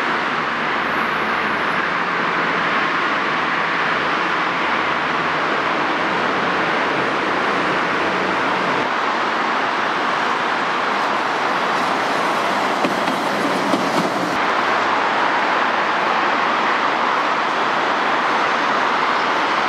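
Steady roar of heavy city road traffic, with a tram running along its rails in the first half. A couple of light knocks come about two-thirds of the way through.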